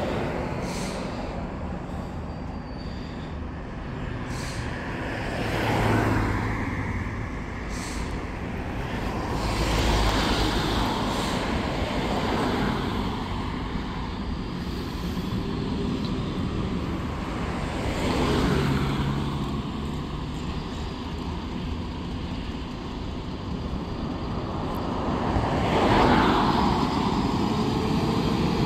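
Road traffic passing, several vehicles going by one after another, each a rise and fall of tyre and engine noise. Near the end a fire engine's diesel engine is heard as it pulls out and turns onto the road.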